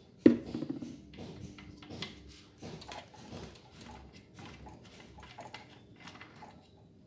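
A plastic engine-oil bottle set down hard on a tile floor: one sharp knock with a short hollow ring about a third of a second in. Light clicks and rustles of hands handling the brush cutter's engine follow.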